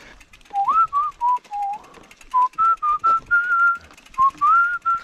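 A man whistling a tune: a string of short and held notes, a few of them sliding up into the next note.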